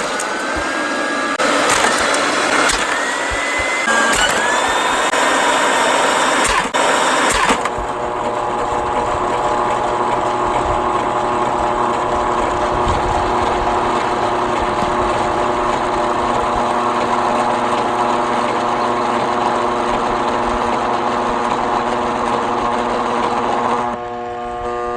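Eureka Bravo II upright vacuum cleaner's motor running loud, with short rising whines. About eight seconds in, the sound changes abruptly to a steady, even drone that holds on to the end.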